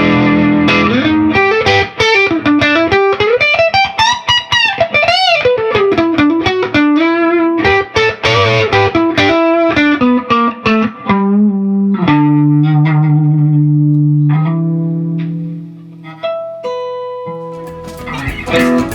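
Electric guitar played through a Dr. Z MAZ18 tube amp head into a 1x12 speaker cabinet: a fast lead line with wide string bends, then held notes left to ring and fade. A fuller burst of sound starts just before the end.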